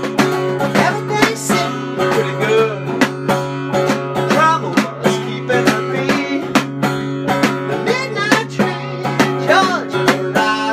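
Instrumental music: plucked, buzzing strings with a sawari-style rattle, picked in a quick rhythm over a steady low drone, with bending, sliding notes on top.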